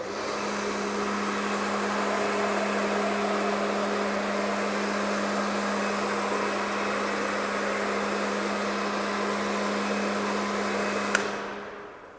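Kärcher K2 electric pressure washer running, its pump motor humming steadily under the hiss of water and snow foam spraying from an MTM PF22 foam lance. The trigger is released with a click about 11 seconds in and the motor winds down. The K2's pressure is too low for this lance to make proper foam.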